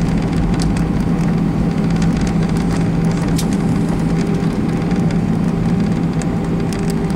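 Airliner cabin noise at landing: a steady rumble of the engines and rushing air with a constant low hum, and light rattling of the cabin fittings.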